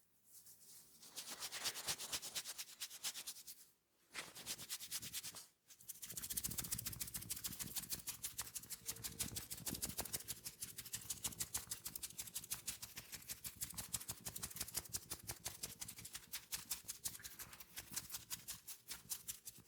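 A barber's hands working fast over a person's head and hair in a massage, making a rapid, even rustle of taps or strokes at about ten a second. There are brief pauses about four and five and a half seconds in.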